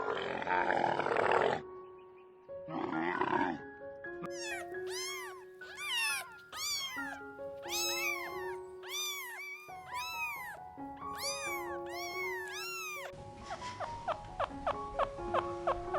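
Animal calls over background music. Two rough, noisy calls come first, then a long run of repeated arched, high-pitched calls, then rapid short chirps near the end.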